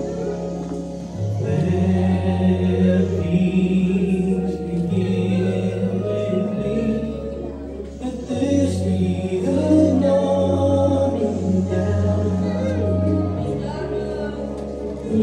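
A group of voices singing a gospel-style song over sustained low chords that change every second or two.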